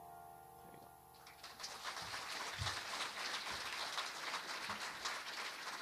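The last chord of a Roland RD-700 stage piano fading out, then audience applause starting about a second in and carrying on.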